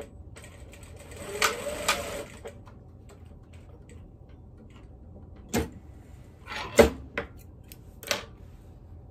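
Sewing machine stitching in one short run of about a second, then a few sharp separate clicks and knocks, the loudest about seven seconds in.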